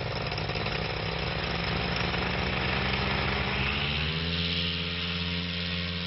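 Piston engine of an early propeller aircraft running steadily; its note changes about four seconds in.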